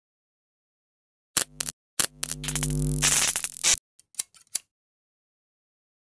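Edited-in sound effect over silence: a few sharp clicks, then a buzzy tone with a hiss lasting nearly two seconds that cuts off suddenly, then a quick run of fainter clicks.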